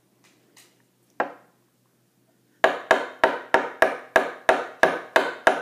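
A spoon banged over and over on a hard surface by a toddler: one knock about a second in, then, after a couple of seconds, a steady run of sharp, ringing knocks, about three a second.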